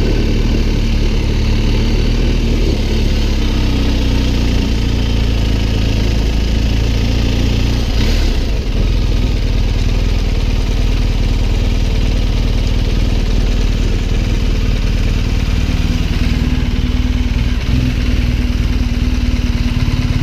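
BMW R 1250 GS Adventure's boxer-twin engine running as the bike is ridden at low speed, settling to a steady idle in neutral near the end. There is a single short thump about eight seconds in.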